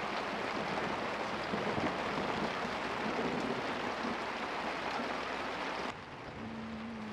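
Heavy rain pouring down in a steady dense hiss. About six seconds in it cuts off abruptly to a quieter rain sound with a faint low steady hum.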